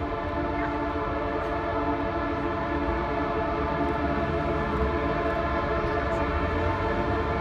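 Column of motorcycles approaching along the road: a steady drone of many engines with sustained tones over a low rumble, growing gradually louder.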